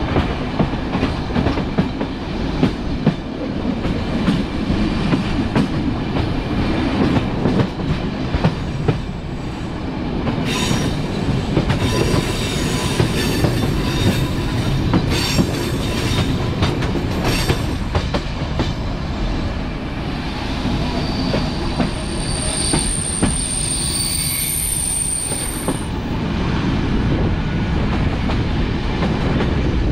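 Passenger train running, heard from the open door of a moving coach: a steady rumble of wheels on rail with clicks over the joints. High metallic wheel squeal joins about a third of the way in and again past two-thirds.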